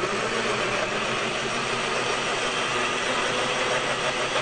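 Countertop blender running steadily, its motor and blades puréeing chunks of watermelon and vegetables into a smooth liquid.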